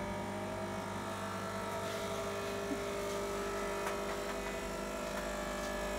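Capsule coffee machine's pump buzzing steadily while brewing, one of its tones rising slightly at the start.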